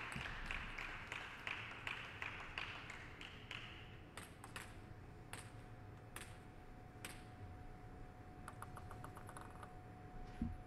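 Scattered clapping fading out over the first few seconds, then sparse light taps of a table-tennis ball between points, including a quick run of small taps about two-thirds of the way through. A faint steady tone comes in partway.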